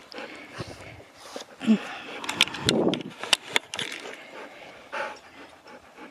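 A Siberian husky panting, mixed with scattered clicks and rustling from handling close to the microphone.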